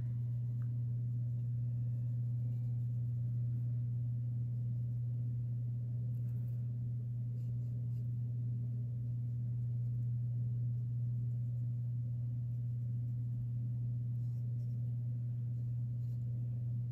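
A steady low hum, with faint scratching of a fineliner pen drawing on paper.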